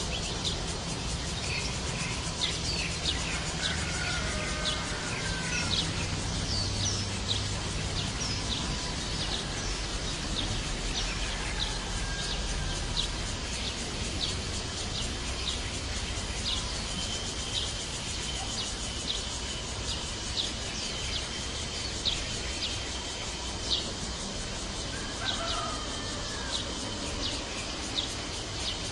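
Small birds giving short, high chirps, about one or two a second, over a steady outdoor background noise, with a few lower whistled calls now and then. A thin, steady high tone runs for several seconds in the middle.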